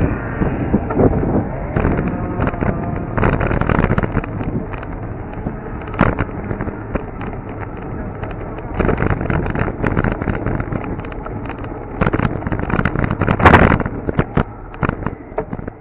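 Wind buffeting the microphone of a camera mounted on a moving bike, with frequent rattles and knocks from the bike over the road surface; the loudest jolt comes near the end.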